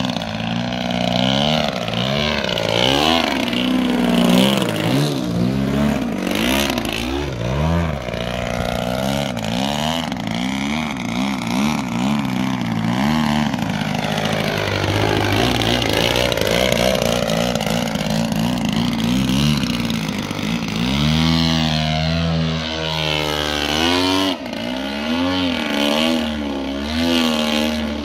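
Radio-control 3D aerobatic plane's engine and propeller, its note rising and falling again and again as the throttle and passes change, then holding a steadier, lower drone for the last several seconds.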